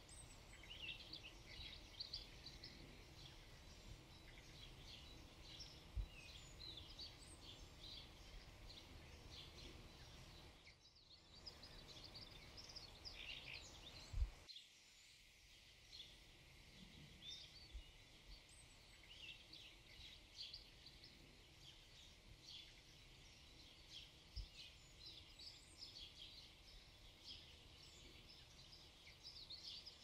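Faint twittering of small birds: a steady scatter of short, high chirps over a quiet outdoor background. A single low thump comes about fourteen seconds in.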